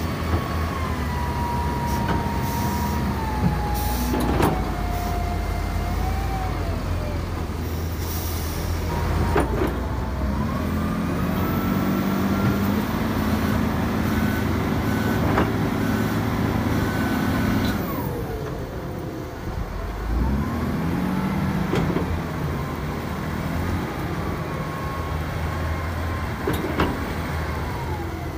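Wheel loader's diesel engine running and revving as it works, with a whine that slides down and back up in pitch as the revs change. There are a few sharp clunks, and the engine is loudest from about a third of the way in to nearly two-thirds.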